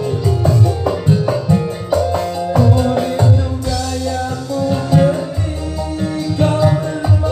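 Live dangdut band playing loud through a large PA sound system: a steady heavy drum and bass beat under sustained melody instruments.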